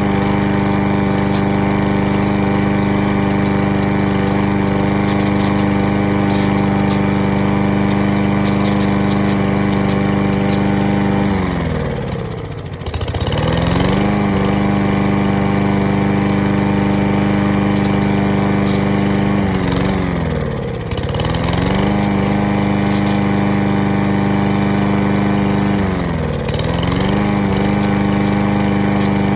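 Gasoline lawn mower engine running at a steady speed. Three times, about 12, 21 and 26 seconds in, its pitch sags and then picks back up.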